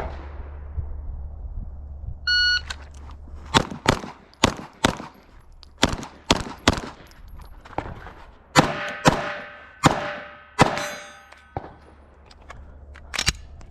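A shot timer beeps once, then a pistol fires a string of about a dozen shots over about seven seconds. The last several shots are followed by the ring of hit steel targets.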